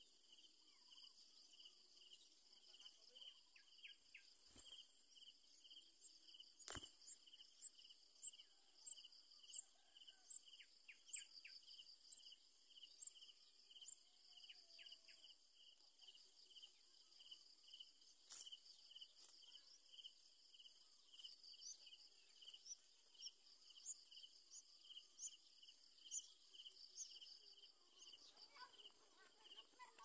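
Faint, steady chorus of insects trilling in fast, even pulses, with scattered short high chirps and a few sharp clicks. A patch of lower sounds rises near the end.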